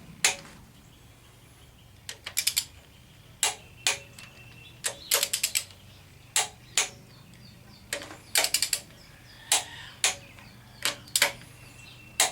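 Torque wrench ratcheting on small-block Chevy cylinder head bolts during the first tightening pass to 30 foot-pounds: short quick runs of clicks mixed with single sharp clicks, spaced unevenly.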